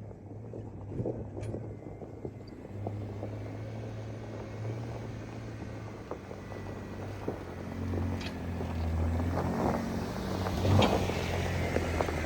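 2014 Jeep Wrangler Rubicon's 3.6-litre V6 engine running at low speed, its note shifting and getting louder in the second half, with scattered knocks and clicks.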